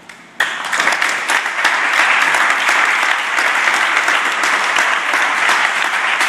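An audience of spectators breaks into applause, many hands clapping, starting suddenly about half a second in and continuing at full strength.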